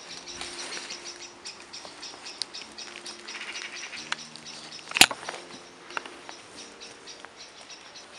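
A metal roasting spit with a whole chicken on it set down with one sharp knock on a wooden cutting board about five seconds in, with a few lighter clicks of handling. Underneath, a steady high-pitched chirping of night insects.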